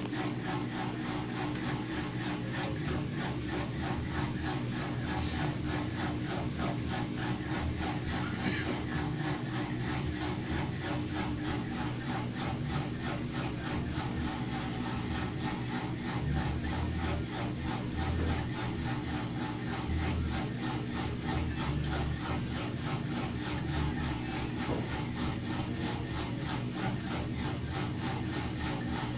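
18 kg Mabe washing machine in its spin cycle, making a steady, fast repeating rubbing and scraping noise over its running hum: the abnormal noise it makes when spinning.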